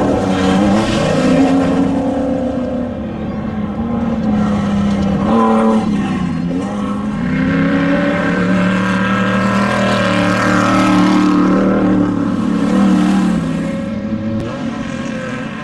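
Off-road race vehicle engine running hard, its pitch rising and falling several times with the throttle.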